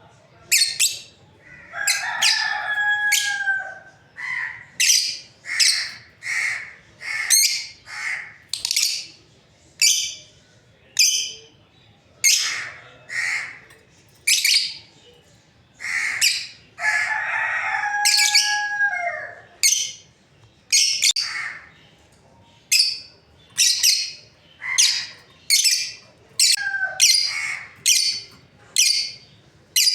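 Lovebirds calling: a steady run of short, shrill chirps about once a second. Two longer, drawn-out calls with a held tone that drops at the end come a couple of seconds in and again a little past halfway.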